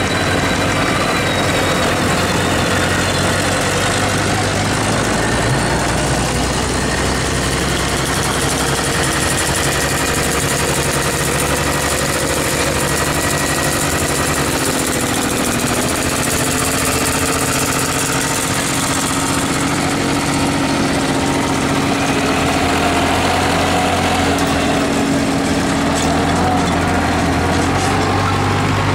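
Engines of farm machinery running steadily as they drive slowly past: first a backhoe loader, then a small two-wheel tractor pulling a seat trailer, with other tractors running nearby.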